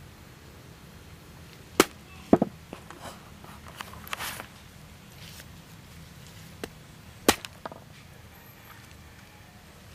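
A few sharp knocks or cracks: a loud one about two seconds in, a quick double one just after, and another loud one about seven seconds in, with fainter taps and rustles between.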